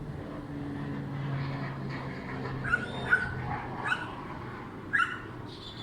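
A dog barks four times in short, sharp yelps, over the steady low drone of an aircraft engine.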